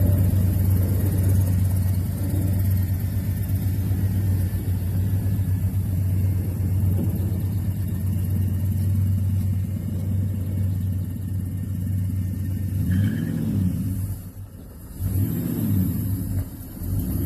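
Small-block Ford V8 of a 1983 bullnose Ford pickup running with a steady low rumble. Near the end the engine note rises and falls twice, with a brief dip in loudness between the two.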